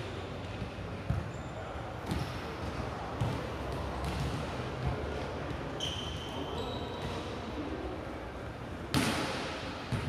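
Scattered thuds of a ball bouncing on an indoor court floor, with a louder thud near the end. Brief shoe squeaks come about six seconds in, over faint background voices in a reverberant hall.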